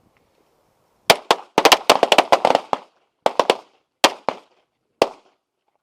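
Several handguns fired by a line of shooters on command: a ragged volley of overlapping shots starting about a second in, densest for the next second and a half, then a few scattered single shots trailing off, the last near the end.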